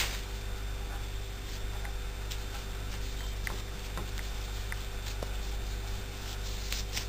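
Steady low hum and hiss of the recording, with a few faint, irregular light ticks as a metal crochet hook works red yarn in short single-crochet stitches.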